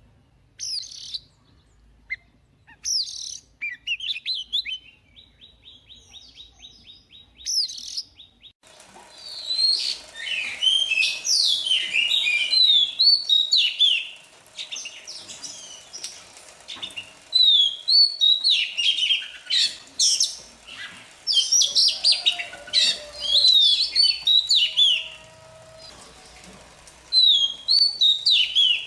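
White-rumped shama singing: quick, varied whistled phrases with fast rising and falling notes, coming in bursts with short pauses. For the first several seconds the phrases are sparse and quieter; from about nine seconds in the song turns loud and continuous.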